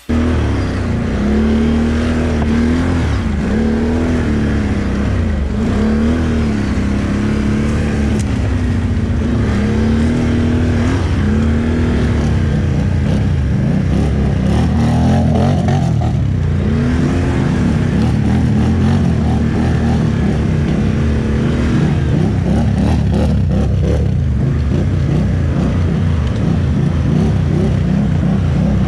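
ATV engine revving in repeated rise-and-fall surges every second or two, then running at a steadier pitch for the later part.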